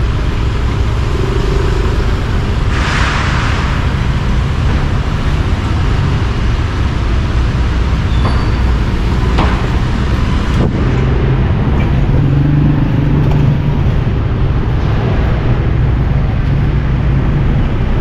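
Steady low engine drone of a motorcycle riding slowly through street traffic, with a short hiss about three seconds in.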